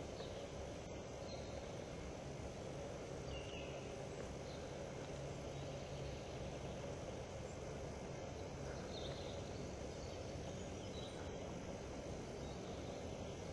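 Steady woodland background noise with a low hum, and a few faint, short, high chirps scattered through.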